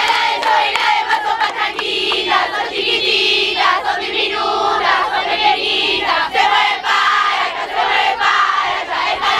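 A group of young people singing and chanting together loudly, many voices at once with shouts mixed in.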